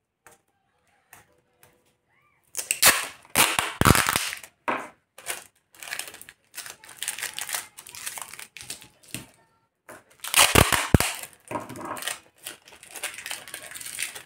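Clear sticky tape pulled off its roll with loud rips and torn off, in two main bouts about three and ten seconds in, with smaller rustles of tape and cardstock being handled in between.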